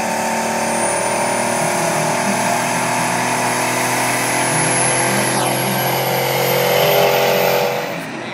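Diesel semi truck engine running hard under load as it pulls a weight sled, with a thin high whistle slowly rising over it. The engine sound drops away near the end.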